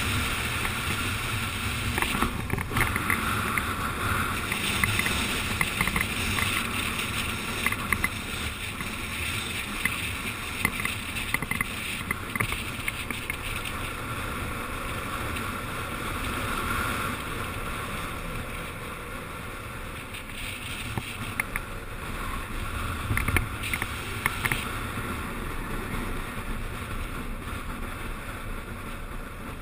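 Wind rushing over a helmet-mounted camera and the steady roll of a downhill skateboard's wheels on asphalt at racing speed, with scattered short ticks throughout.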